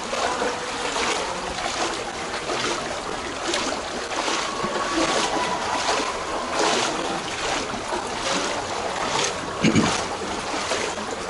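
Feet wading through shallow floodwater in a narrow stone alley, the water sloshing and splashing irregularly with each step.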